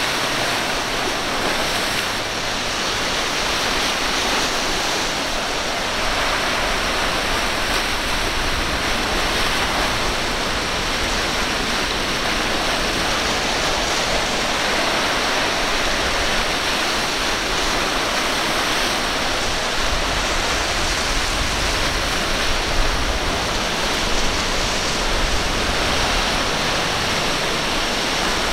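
Steady rush of breaking surf and churning whitewater.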